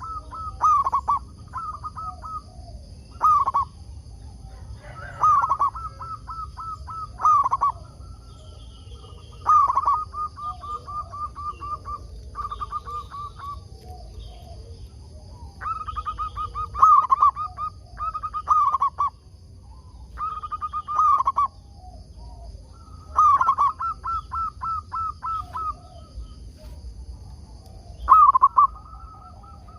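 Zebra dove (perkutut) cooing: repeated phrases of quick staccato notes, a new phrase every two or three seconds.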